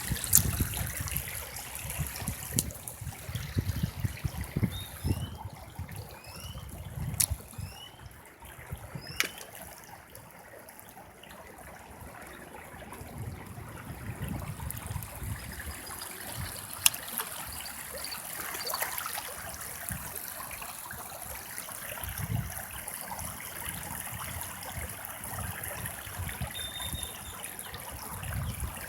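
River water flowing and trickling steadily, with an uneven low rumble underneath.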